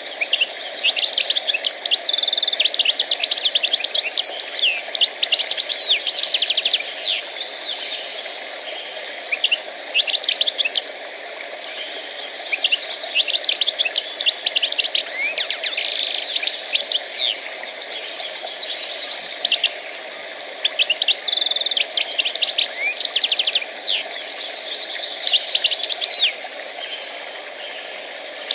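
Small songbirds singing in bursts of rapid, high chirps and trills, each burst lasting a few seconds with short breaks between, over a steady background hiss.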